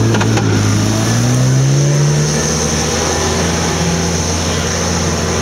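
Off-road 4x4's engine revving hard: its pitch climbs over the first two seconds, then holds at high revs, with a steady hiss above it.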